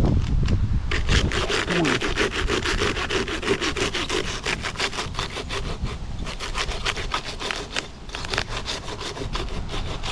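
Arborist's pruning handsaw cutting through a tree limb in rapid, even strokes, starting about a second in.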